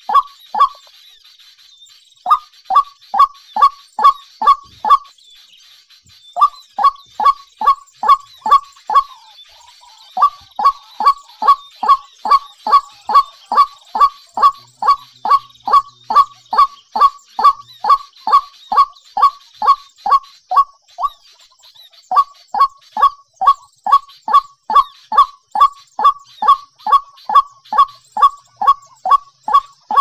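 White-breasted waterhen calling: a loud honking note that falls in pitch, repeated about three times a second in runs of several seconds broken by four short pauses, over a faint high-pitched background hiss.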